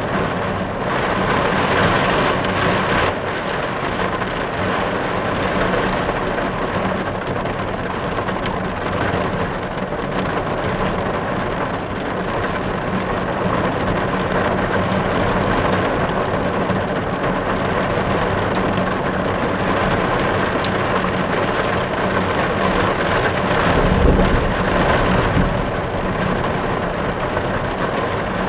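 Steady rain drumming on a car's roof and windows, heard from inside the car as a dense, even patter. A brief low rumble swells about three quarters of the way through.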